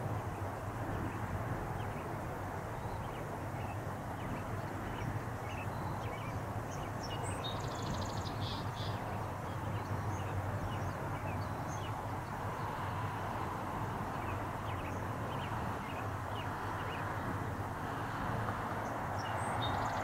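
Steady distant jet engine noise from a Boeing 777 at low thrust as it lines up on the runway, with small birds chirping faintly over it.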